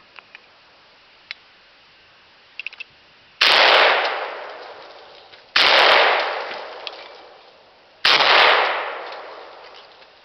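Three shots from a 1967 Browning A-5 'Sweet Sixteen' 16-gauge semi-automatic shotgun, fired about two and a half seconds apart, each followed by a long fading echo.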